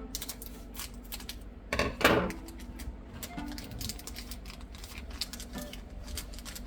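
Trading cards being handled and flipped through, a run of light clicks and snaps of card stock, with one louder burst about two seconds in. Faint background music and a low steady hum run under it.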